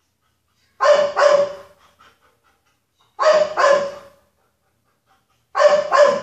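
A dog barking loudly in three pairs of quick double barks, a couple of seconds apart.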